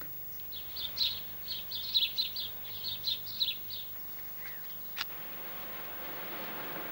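A small bird chirping in quick runs for the first few seconds. About five seconds in comes a sharp click, then a steady hiss as the lit fuse of the firework mortar burns.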